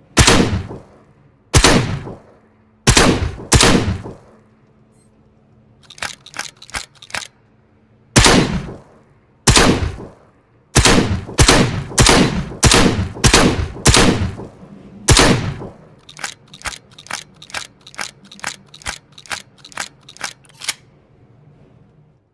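Combat shotgun firing as a sound effect. Loud single shots come first with pauses between them, then a steady run of about eight loud shots. Two quicker runs of quieter shots follow: a short one of about four shots, and a long one of about three shots a second near the end.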